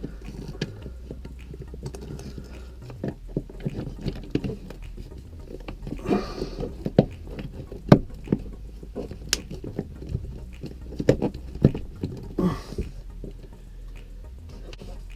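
Irregular small clicks and knocks of hands and a screwdriver working a remodel-style wall box into a cabinet wall, tightening its screws so its two arms swing out and grab the wall.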